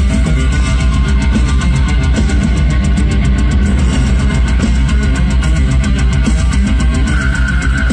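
Extreme metal band playing live, heard from the crowd: heavily distorted electric guitars and bass over a heavy low end and rapid, steady drumming. A high held note comes in about seven seconds in.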